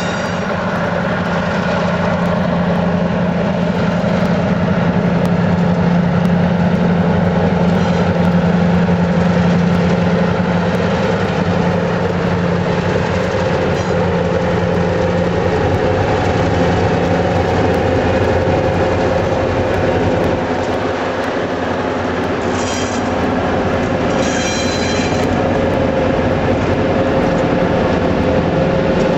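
Freight train of covered hopper cars rolling past: a steady rumble of wheels on rail with a held drone. Two brief high wheel squeals come about three-quarters of the way through.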